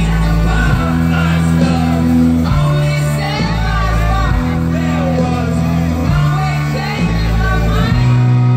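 Live rock band playing loudly, recorded from within the crowd: the lead singer sings and shouts into the microphone over held bass notes that change every second or two.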